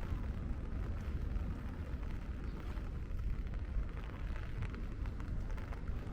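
Steady rain falling over a low, constant rumble of city traffic, with faint scattered taps of drops.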